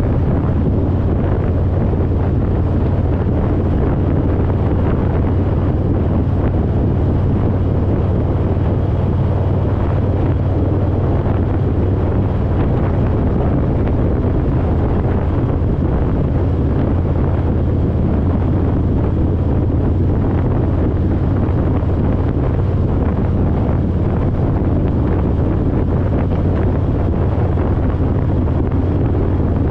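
Wind rushing over the microphone with the steady low rumble of a Harley-Davidson Road Glide's V-twin engine, cruising at an even speed.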